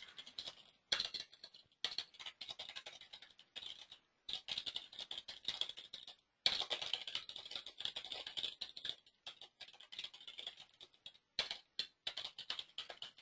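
Typing on a computer keyboard: quick runs of keystrokes broken by several short pauses.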